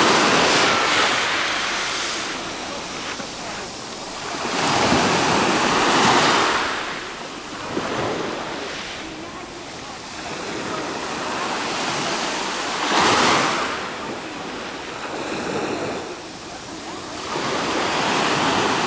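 Small sea waves washing onto the beach, the rush of water swelling and fading four times, several seconds apart.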